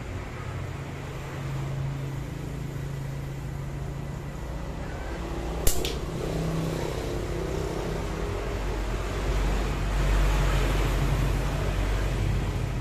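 Slingshot with flat rubber bands fired once about halfway through: a single sharp crack. A steady low rumble runs underneath and swells near the end.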